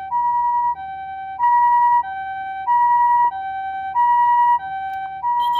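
Osaka Siren MK-D1 siren amplifier sounding the Japanese ambulance two-tone siren, a steady high-low "pee-poh" alternation with each note held about two-thirds of a second. The high note is louder than the low one.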